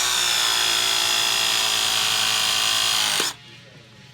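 Ridgid RP 340 battery press tool running a press cycle on a pipe fitting: a steady motor whine whose pitch sags slightly under load, cutting off suddenly about three seconds in.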